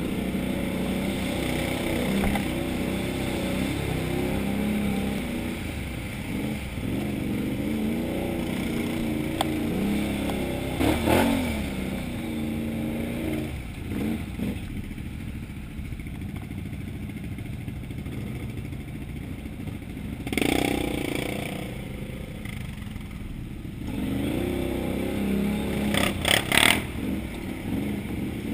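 Can-Am Outlander XMR 1000R ATV's V-twin engine running on a muddy trail, its pitch rising and falling with the throttle, quieter through the middle. Several brief, louder noisy bursts cut in about 11, 20 and 26 seconds in.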